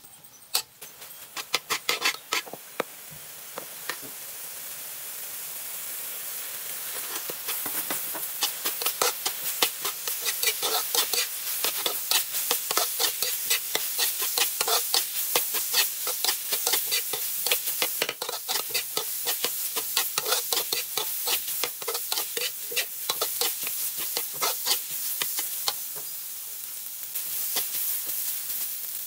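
Metal spatula scraping and clinking rapidly against a wok as minced beef is stir-fried. The frying sizzle beneath it builds over the first several seconds, then holds steady.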